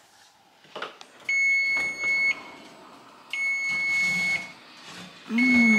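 Oven timer beeping: three long, steady, high beeps about two seconds apart, signalling that the baking time is up. A voice holds a low note along with the last beep.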